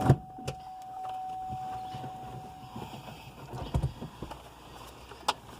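Handling noises of someone shifting around in a vehicle's cab with a scan tool: scattered knocks and clicks, with a sharp click near the end. A steady electronic tone sounds under them and stops about halfway through.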